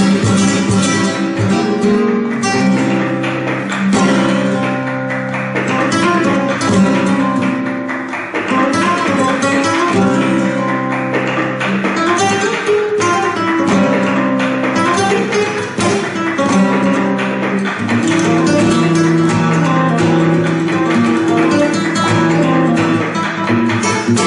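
Flamenco guitar music: a continuous run of plucked notes and chords with frequent sharp strokes.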